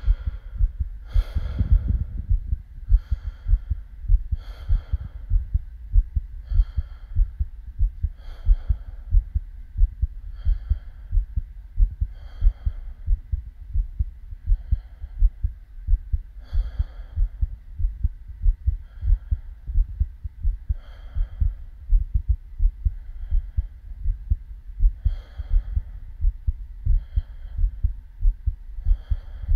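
A human heartbeat: low, dull thumps in a steady rhythm. A soft hiss comes back about every two seconds.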